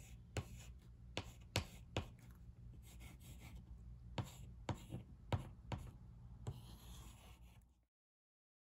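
Chalk writing on a small chalkboard: a string of sharp taps as the chalk meets the board, with short scratchy strokes between them. The sound cuts off abruptly near the end.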